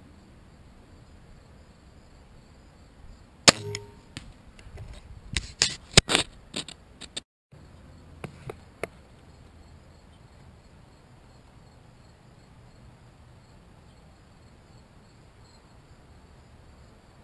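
A compound crossbow firing: one sharp snap of the string and limbs releasing about three and a half seconds in, with a brief ringing. Over the next few seconds a cluster of sharp clicks and knocks follows, one as loud as the shot, then a few smaller clicks, with insects chirring steadily behind.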